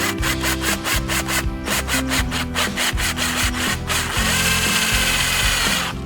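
Fast, evenly repeated rasping strokes of a tool cutting or scraping material, about six a second, then a steady whirring grind for about two seconds that cuts off suddenly. Background music plays underneath.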